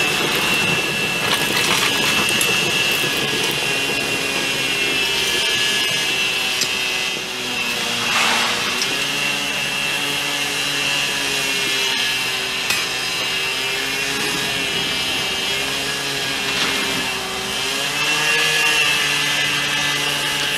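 Aluminothermic (thermite) rail-welding crucible burning on a rail joint, a steady hissing rush from the reaction.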